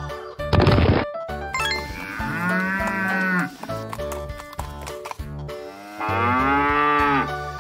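Cow mooing twice: two long moos, each about a second and a half, rising then falling in pitch. A short burst of noise comes just before them.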